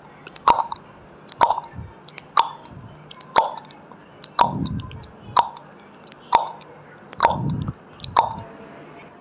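Countdown timer sound effect: a sharp clock-like tick about once a second, each with a short ringing tail, and a softer low thud under some of the ticks.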